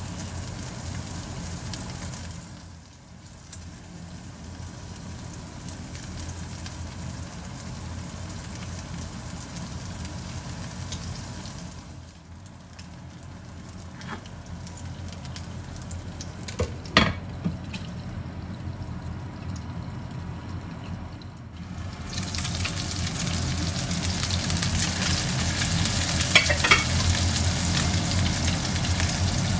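Okonomiyaki batter and pork belly slices sizzling in oil in a nonstick frying pan. The sizzle gets louder over the last several seconds, with a few sharp clicks around the middle.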